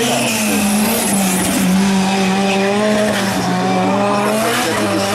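Hillclimb race car engine running loud and held at steady high revs.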